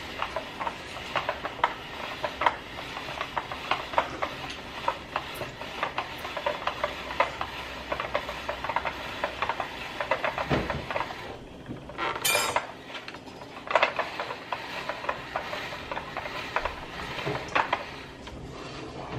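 Hand-cranked spiralizer being turned to cut zucchini into noodles: a fast, uneven run of clicks and rattles from the crank and blade. It breaks off briefly a little past halfway, then gives a short scrape.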